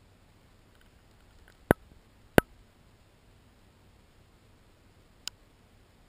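Three short, sharp clicks in a quiet room, the first two close together and loudest, the third weaker, about three seconds later.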